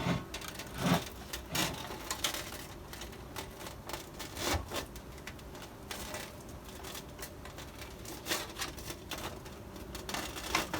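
PC case side panel being worked onto the case frame by hand: a run of irregular clicks, taps and light scrapes as the panel goes on snugly.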